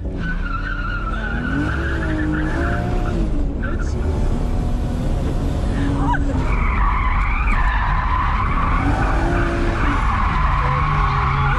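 Drift car's engine revving up and down with its tyres squealing as the car slides sideways, heard from inside the cabin. The squeal gets louder from about halfway through.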